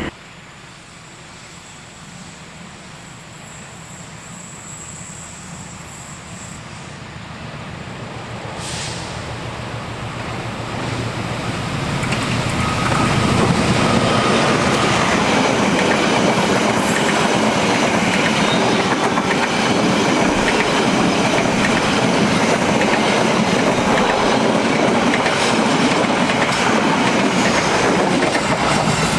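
Diesel-hauled passenger train approaching and growing steadily louder for about thirteen seconds, then its carriages running past with continuous wheel-on-rail clatter.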